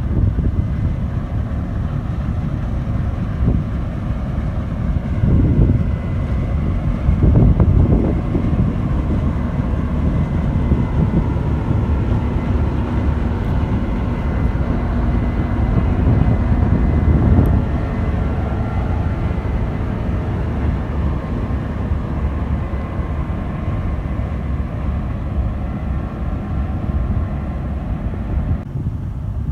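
Case IH Axial-Flow 8250 combine running while harvesting: a steady low drone of engine and threshing machinery with a faint high whine, swelling louder a few seconds in and again about halfway through.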